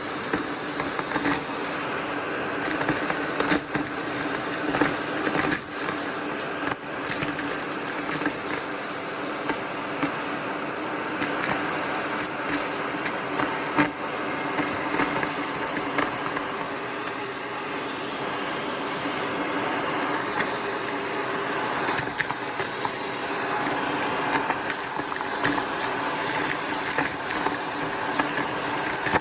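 Vacuum cleaner running with its crevice tool, a steady motor hum broken by frequent crackles and clicks as debris crunches through the tool.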